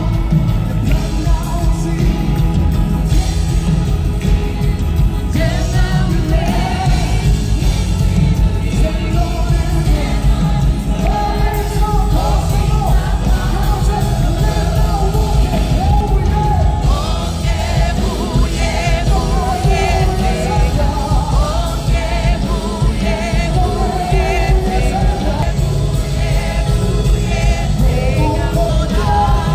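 Live gospel worship music played through a large hall's PA: a lead singer and backing vocalists over drums and electric guitar, with a heavy low end.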